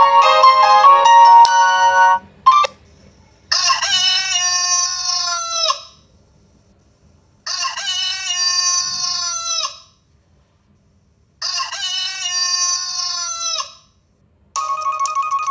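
Rooster ringtone: a rooster crowing three times, each crow about two and a half seconds long and falling in pitch at its end, with short silences between. It is preceded by the last two seconds of a musical ringtone melody, and another electronic ringtone starts about a second before the end.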